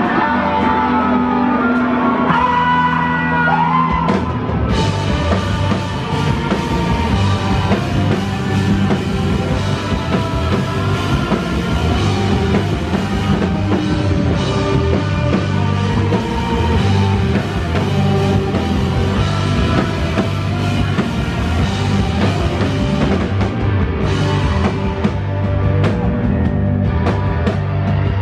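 Live rock band playing loud: distorted electric guitars, bass guitar and drum kit. The opening seconds are held guitar chords with bending notes, and the drums and cymbals come in fully about four and a half seconds in.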